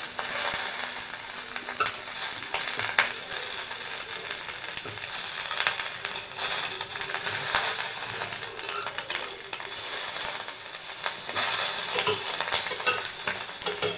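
Tangra fish shallow-frying in a kadai brushed with a little mustard oil, sizzling steadily and swelling now and then, with light clicks and scrapes of a spatula turning the fish over in the pan.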